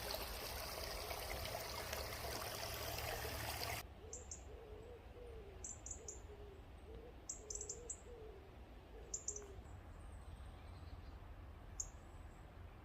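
Running water for the first few seconds, cut off abruptly. Then a wood pigeon cooing in repeated phrases of soft, low hoots, with faint short high chirps of small birds.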